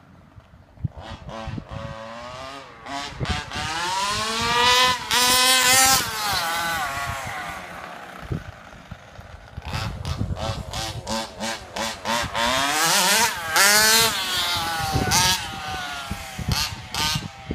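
HPI Baja 5B 1/5-scale RC buggy's two-stroke petrol engine revving hard, with quick throttle blips, as it drives up and down the road. It passes close and loud twice, about five and about fourteen seconds in, the pitch rising and then falling away each time.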